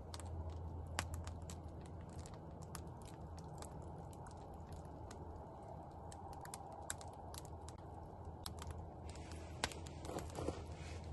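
Wood campfire of burning sticks and branches crackling, with sharp irregular pops scattered over a soft steady rush. The loudest pop comes about a second in.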